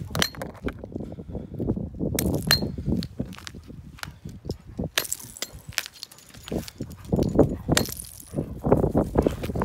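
Hammer striking pieces of ice on a concrete sidewalk: a string of irregular sharp knocks and clinks as the ice is smashed.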